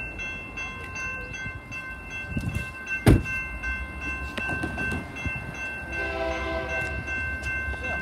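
Grade-crossing warning bell ringing steadily at a level crossing, with an approaching train's horn sounding about six seconds in. A single sharp thump about three seconds in, likely a car door shutting, is the loudest sound.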